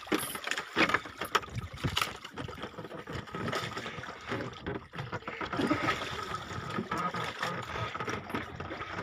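Water splashing and sloshing around a small fishing boat, with scattered knocks and clicks and a faint steady whine.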